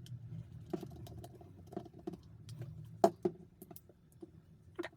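Small clicks and taps of screws being worked by hand into a plastic power-tool housing, a few louder clicks standing out about three seconds in and near the end, over a faint low hum.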